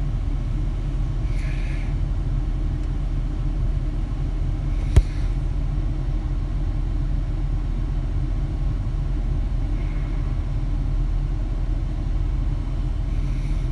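Ford F-350 pickup's engine idling, heard inside the cab as a steady low rumble, with one sharp click about five seconds in.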